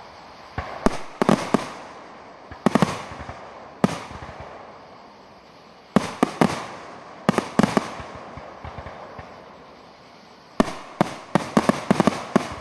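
Aerial firework shells bursting in quick clusters of sharp bangs, each group trailing off in a rolling echo. The densest run of bangs comes near the end.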